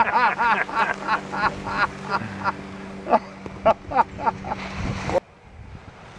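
A person laughing heartily in a quick run of "ha-ha" bursts that thins out into a few separate chuckles, over a steady low hum; it all cuts off abruptly about five seconds in.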